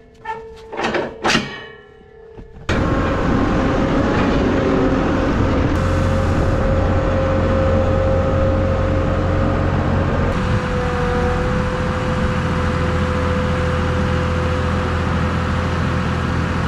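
A few seconds of background music, then a heavy engine starts up abruptly about three seconds in and runs steadily at a constant speed: a loud low hum with a steady whine above it, the whine dropping slightly in pitch partway through.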